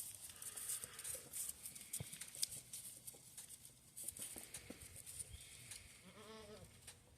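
A goat gives one short, quiet bleat that rises and falls in pitch about six seconds in, over scattered light clicks and rustling.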